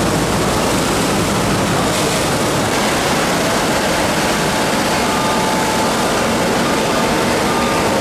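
Swollen, muddy flood creek rushing under a road bridge: a loud, steady rush of water, with a heavy machine's engine running beneath it.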